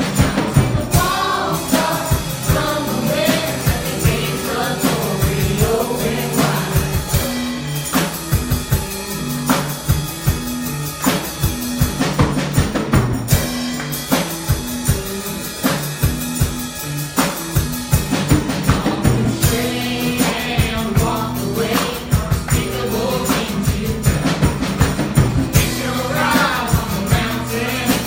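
Live gospel worship music: a band with drum kit and bass playing a steady beat, with congregational singing coming in and out over it.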